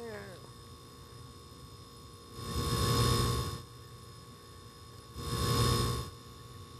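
Steady refrigerator hum with a thin high whine running under everything. Twice, about two and a half and five seconds in, a louder wash of noise swells up for about a second and fades.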